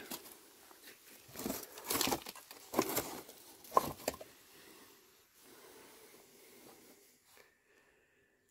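Rusty tin cans being picked up and handled among cardboard scraps, dry leaves and rubble: several short crinkling rustles and knocks in the first half, then faint handling noise that fades almost to silence near the end.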